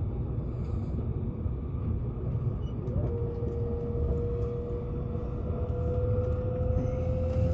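Electric train running, with a steady low rumble. About three seconds in, a motor whine starts and slowly rises in pitch.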